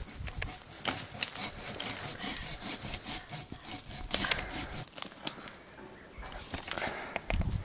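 Vines being pulled and torn out of bush undergrowth: rustling foliage with irregular snaps and cracks of stems and twigs.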